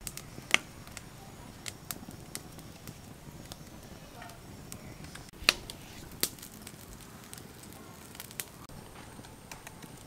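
Wood fire crackling, with scattered sharp pops, the loudest about half a second and five and a half seconds in. A faint steady high tone comes in near the end.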